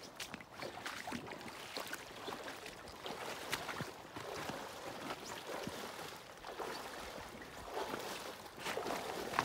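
River water flowing and sloshing around wading legs, with irregular splashing steps through shallow water that grow louder near the end.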